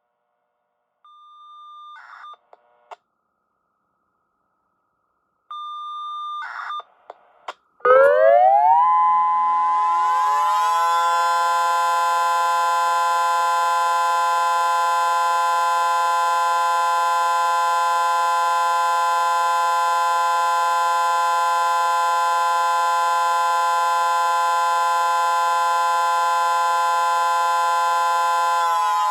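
Two short FSK radio bursts through a scanner speaker, each a brief steady beep followed by a rapid data chatter. About eight seconds in, an electronic siren and a mechanical siren start together on the steady alert signal: the pitch climbs over two or three seconds, then holds one loud steady tone.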